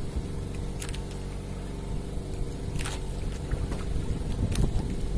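A small engine running steadily, with three brief sharp clicks over it.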